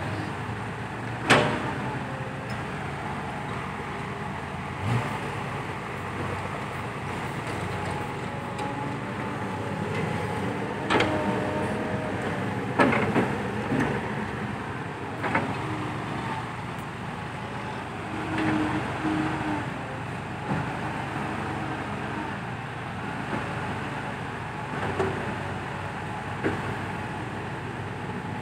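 Heavy diesel engines of dump trucks and an excavator running steadily, broken by a few sharp clanks, the loudest about a second in.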